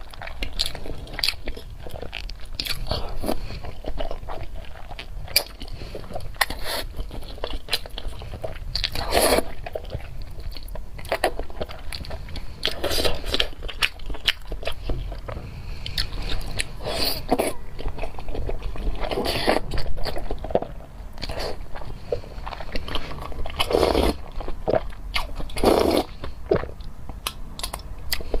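A person eating close to the microphone: biting and chewing food, with many small wet mouth clicks and a few longer soft eating sounds.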